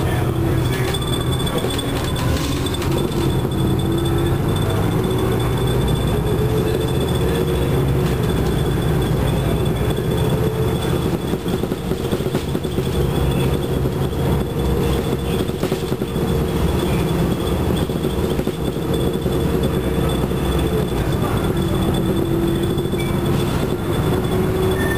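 Inside a 1996 NovaBus Classic transit bus on the move: its Detroit Diesel Series 50 engine and Allison transmission drone steadily under road noise. A whine in the drive rises in pitch a few seconds in, holds, and drops back near the end as the bus speeds up and slows.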